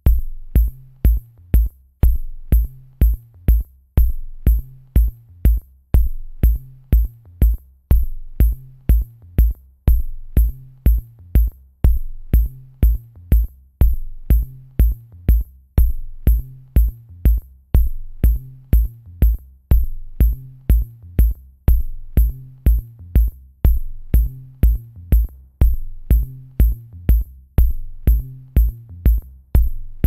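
Background music with a steady electronic drum-machine beat, about two deep kicks a second topped by crisp high ticks, over a repeating bass line.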